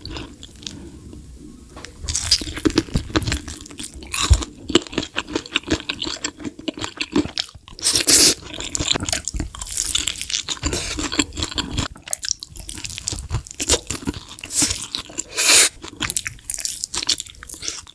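Close-miked eating: crunchy bites into crispy spicy chicken and wet chewing, starting about two seconds in and going on in quick crackling crunches.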